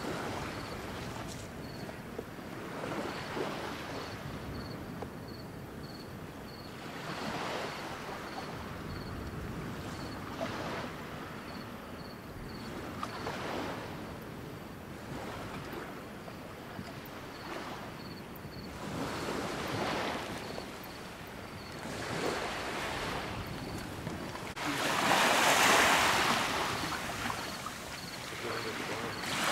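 Water sloshing and splashing in repeated surges, one every two to three seconds, with a louder rush of water near the end.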